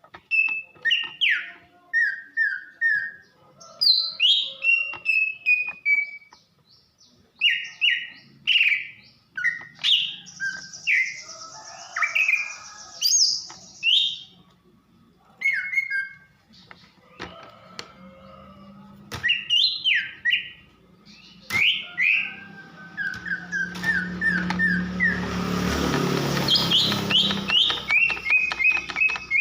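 Female greater green leafbird (cucak ijo) calling: short whistled notes, most sliding down in pitch, in quick runs of three to six, with chirps between. From about 18 s a low hum sits under the calls, and a noisy haze builds under them near the end.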